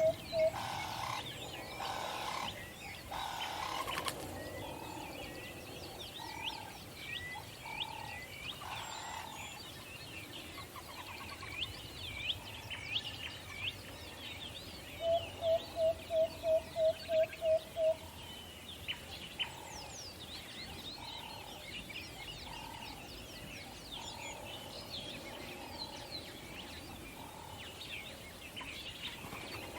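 An owl hooting in a quick run of about nine short, even notes midway through, over steady chirping from many small songbirds.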